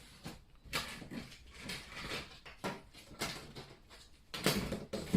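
Plastic housing of a Nespresso coffee machine scraping and knocking as the top cover is worked loose and lifted off. There are several short rubs and clicks, with the loudest scrape near the end.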